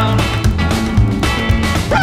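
Rock-and-roll music with guitar and a steady beat.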